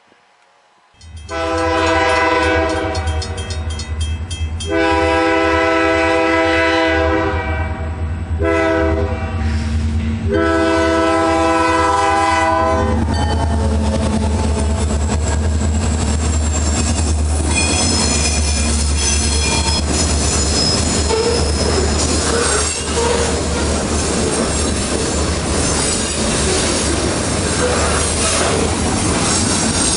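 Diesel locomotive of a Canadian Pacific freight train blowing its horn in the grade-crossing pattern, long, long, short, long, over its deep engine throb as it approaches and passes. Then the freight cars roll by with clickety-clack and thin, high wheel squeal on the curving track.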